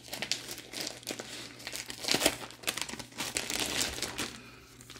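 Plastic Unicorn 3T spawn bags filled with hydrated millet crinkling as they are handled and turned over, in irregular crackles with the loudest about two seconds in.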